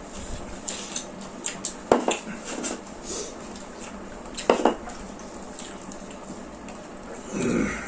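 Cutlery and dishes clinking against plates during a meal, with scattered light clicks and two louder clinks, about two seconds and four and a half seconds in.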